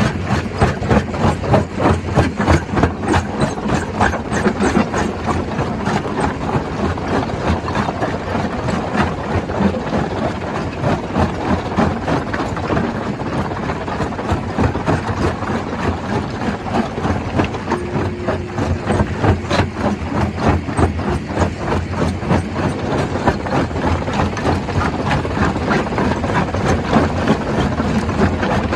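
Stone crusher running and crushing rock: a dense, continuous clatter of knocks over the steady drone of the machine.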